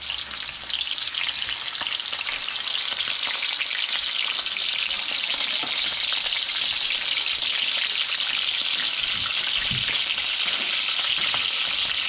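Raw frog legs sizzling and crackling steadily in hot oil in a small frying pan.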